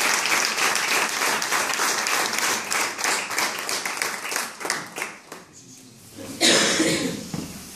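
Small audience applauding, the clapping thinning out and stopping about five seconds in. Near the end a man's voice speaks briefly and loudly.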